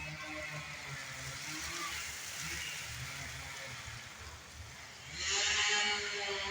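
A motor running with its pitch drifting slowly up and down, then a louder rushing hiss with a steadier, higher tone starting about five seconds in.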